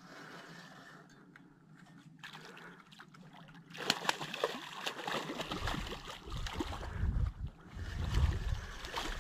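A hooked brown trout splashing and thrashing at the water's surface close to shore as it is played in on a fishing rod, starting about four seconds in, with a low rumble over the splashing in the second half.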